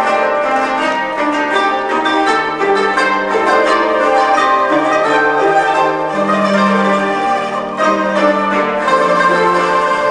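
A koto ensemble playing: many koto strings plucked together in a continuous, dense flow of notes.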